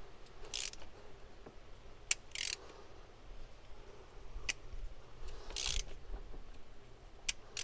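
Ratchet wrench slowly working a very tight steel spark plug out of an aluminium cylinder head, a plug stuck by corrosion. It makes a few short rasping ratchet strokes and scattered light clicks, all quiet.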